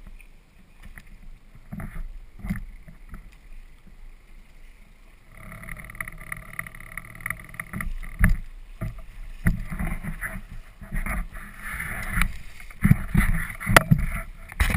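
Small inflatable motorboat under way on choppy water: motor noise and water splashing against the hull, louder from about five seconds in, with sharp knocks as the hull meets the waves near the end.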